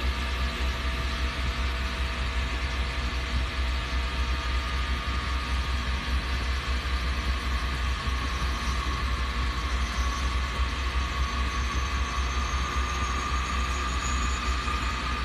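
Lathe running steadily with a constant low hum. Over the second half a faint high tone slowly rises in pitch.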